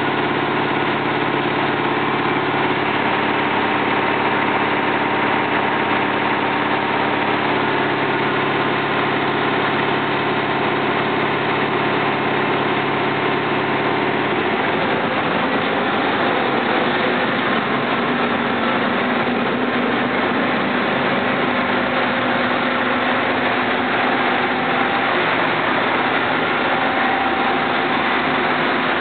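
Mazak milling machine face-milling the end of a metal block: a steady machining noise from the spindle and cutter, with several held tones that shift about halfway through.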